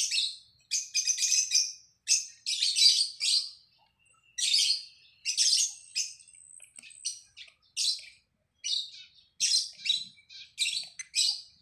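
Small birds chirping in short, high, rapid phrases, about one or two a second, with a brief thin whistle near the middle.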